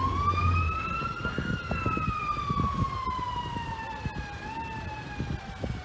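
Emergency vehicle siren in a slow wail: the pitch rises for about a second and a half, then falls gradually, growing fainter, over a low rumble.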